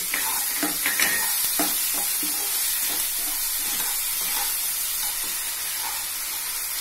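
Chopped tomatoes and sugar sizzling in oil in a non-stick kadai, with a spatula scraping and knocking against the pan as it stirs, most often in the first couple of seconds.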